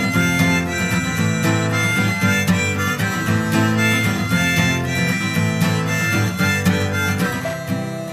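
Music with harmonica over plucked acoustic guitar, easing slightly in loudness near the end.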